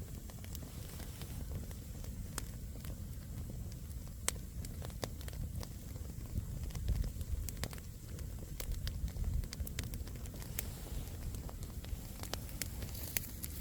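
Firewood campfire burning, with scattered sharp crackles and pops of the burning logs over a low steady rumble.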